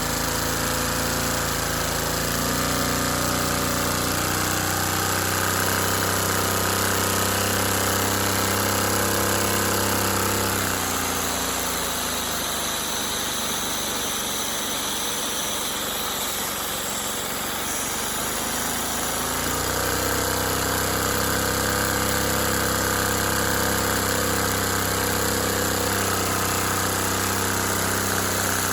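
LEGO Technic V-twin engine model, fitted with a smaller flywheel, running steadily with a continuous mechanical clatter. From about 11 to 19 seconds in, the deep tones fall away and the sound turns thinner, then the fuller running sound returns.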